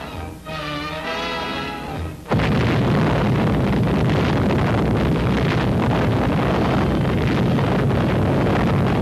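Music, then about two seconds in a sudden loud atomic-bomb blast sound breaks in and carries on as a dense, steady rumble on the old newsreel soundtrack.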